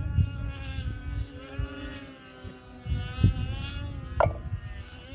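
Small model-aircraft engine droning in flight, its pitch slowly rising and falling as the plane moves about the sky. Wind gusts buffet the microphone.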